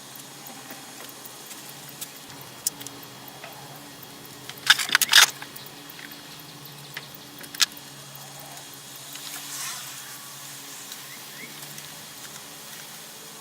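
Small hand-handling sounds at a workbench while gluing cedar pieces: a few sharp taps and a short burst of clicking knocks about five seconds in, over a faint steady hum.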